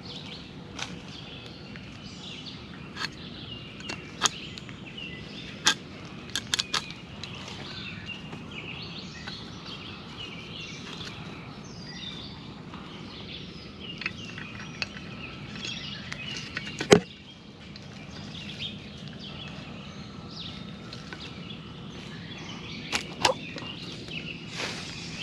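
A tree-climbing stick being strapped to a trunk by hand: rope and strap rustling, with scattered clicks and light knocks of the stick's hardware and one sharper knock about two-thirds of the way through. Birds chirp faintly in the background.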